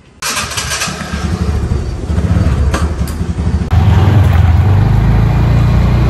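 Motor scooter engine starting about a quarter second in and running as the scooter pulls away and rides off. A few seconds in, the sound steps up to a louder low rumble of engine and wind on the microphone.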